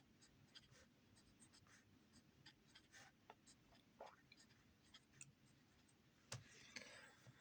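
Faint handwriting: many short scratching strokes and light taps of a pen on a writing surface, a little busier near the end.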